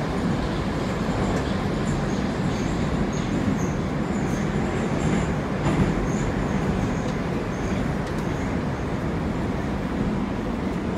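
Moscow metro train running through the tunnel, heard from inside the carriage: a steady, loud running noise of wheels on rails.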